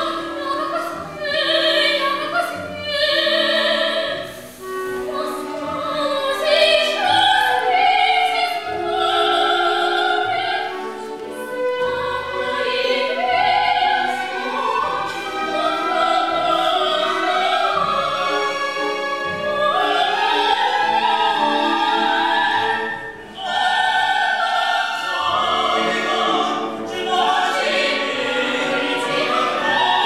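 Operatic singing with orchestral accompaniment: sung voices in a classical style over strings and orchestra, with a short break in the singing near the end.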